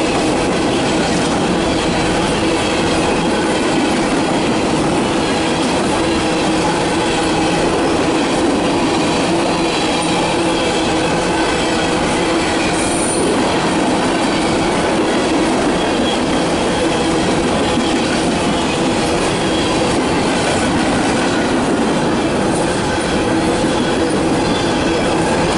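Empty CSX coal hopper cars rolling past at close range: a steady, loud clatter of steel wheels on rail, with faint thin squealing tones running through it.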